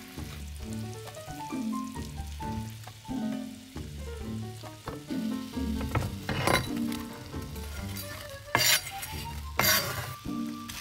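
Sliced onion tipped from a wooden board into hot oil in a frying pan, sizzling in several loud bursts in the second half, over background music with a steady beat.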